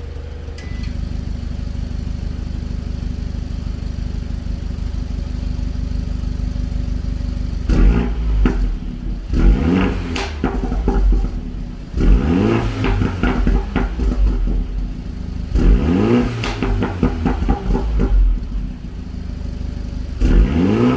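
2021 Mini John Cooper Works F56's turbocharged 2.0-litre four-cylinder, fitted with the JCW Pro exhaust, idling steadily and then revved in several quick throttle blips, the first about eight seconds in, each rising and falling back to idle.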